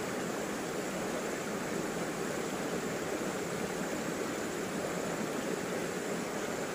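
Shallow river running over rocks and boulders: a steady, even water sound with no breaks.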